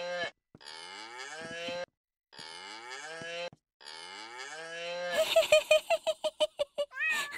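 Toy keyboard's recorded cow moo, sounding three times in a row as the keys are pressed, each moo long and alike. About five seconds in, a fast run of short repeated pulses takes over.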